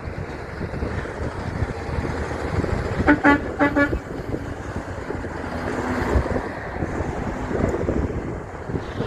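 A truck's horn giving a quick series of short toots about three seconds in, over the steady rumble of a big truck passing on the road.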